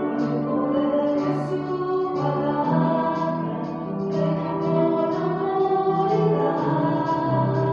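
Choral singing with instrumental accompaniment: a slow hymn-like piece with held notes.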